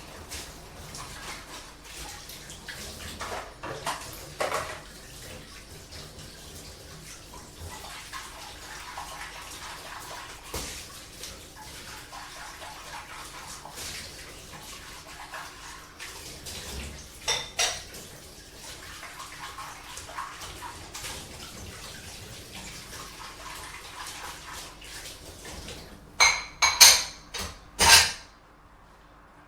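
Dishes being washed by hand under running water: plates and cutlery clink against each other over a steady low hum. Near the end, several loud clatters of dishes come in quick succession, then the running water stops.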